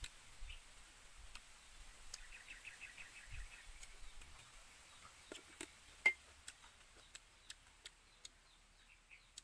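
Faint scattered clicks of eating with chopsticks from a plate, the loudest about six seconds in, with a quick high twittering run like a small bird's trill about two seconds in.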